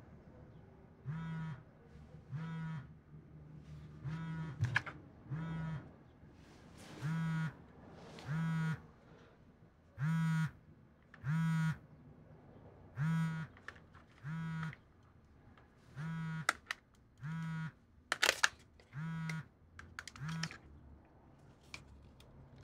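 Mobile phone vibrating with an incoming call: short buzzes of about half a second, two at a time, the pair repeating roughly every three seconds, fourteen buzzes in all. A sharp click of handling near the end.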